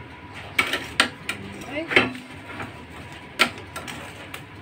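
A handful of sharp clicks and knocks at irregular intervals, about five in all, the loudest about two seconds in.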